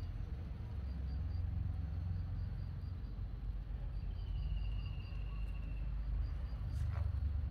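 Outdoor garden ambience: a steady low rumble with insects chirping in short, evenly spaced high pulses. A thin, slightly falling trill runs for about two seconds past the middle, and a single sharp click comes near the end.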